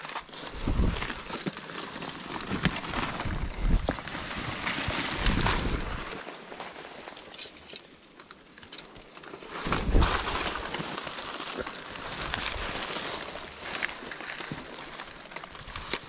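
Dry leaves, twigs and roots crunching and rustling under feet and hands as a person clambers over a steep bank, with a few heavier thumps of footfalls, the loudest about ten seconds in.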